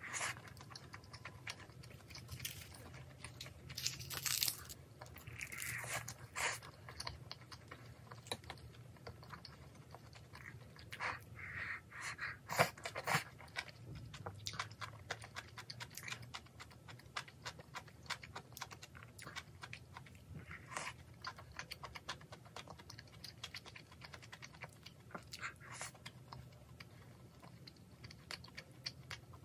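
Close-up eating sounds: chewing and biting on rice and kimchi stew, with many small clicks and taps of chopsticks against a ceramic rice bowl.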